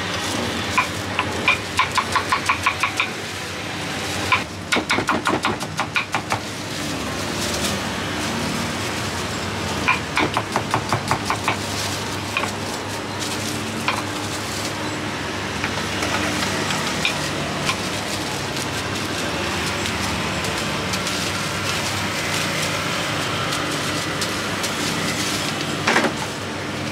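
Knife chopping fresh fruit on a wooden cutting board in quick runs of sharp chops, about four a second, three runs in the first half and a couple more chops near the end, over steady street traffic noise.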